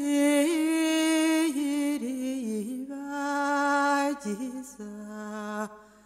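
Background music: a solo voice singing slow, long held notes with a wavering pitch, without words, trailing off near the end.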